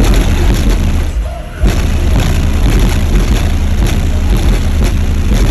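Bass-heavy music played at very high volume through a Jeep's twelve 12-inch subwoofers, heard from outside the open driver's window. The bass drops out for about half a second just after a second in, then comes back in at full level.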